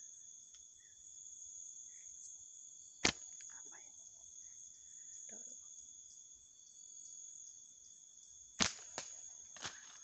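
Steady high-pitched chorus of night insects, with a sharp click about three seconds in and another near the end, followed by a couple of softer ticks.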